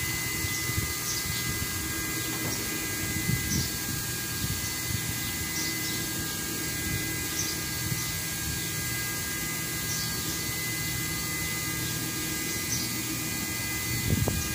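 Steady machine hum with a constant high whine over a low rumble, and a few faint, brief high chirps.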